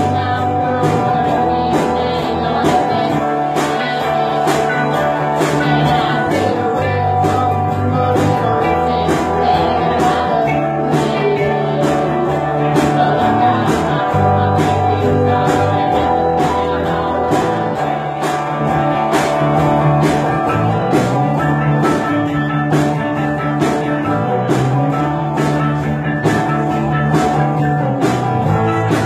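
A small live band playing blues-rock: electric guitars over a steady beat.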